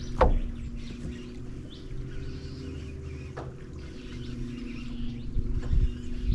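A steady low hum, with small birds chirping faintly in the background and a short sharp click just after the start.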